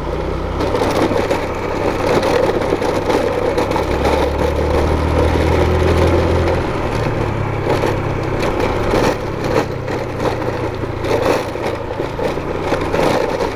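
Motorcycle engine running at low revs, its pitch stepping up about four seconds in and changing again near the seventh second. Over it runs a loud, rough crackling noise full of small knocks.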